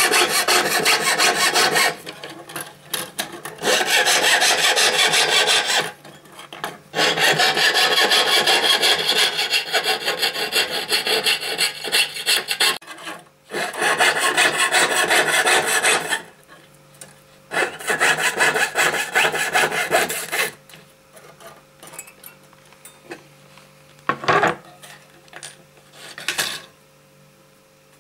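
Fine fretsaw blade cutting a thin metal boulle sheet along a scroll pattern: a harsh, rapid rasping in runs of a few seconds with short pauses between them, ending with two brief rasps.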